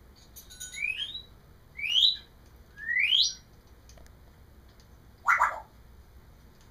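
African grey parrot giving three rising whistles about a second apart, each climbing steeply in pitch, then a single short, harsher call about five seconds in.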